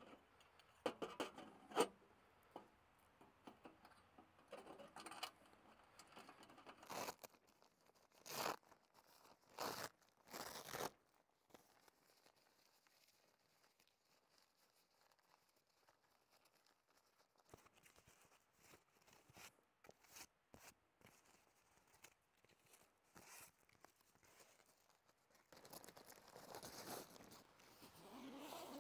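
Handling noise of a small titanium wood stove and its pipe collar: scattered sharp clicks and short scrapes over the first ten seconds or so. After that it goes quiet, with faint ticks, and soft rustling of tent fabric grows near the end.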